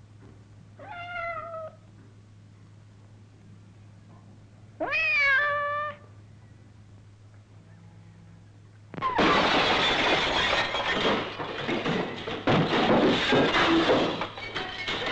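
A domestic cat meows twice; the second call is louder and rises at its start. About nine seconds in, a loud, dense clatter of window glass breaking and shattering takes over, full of sharp impacts.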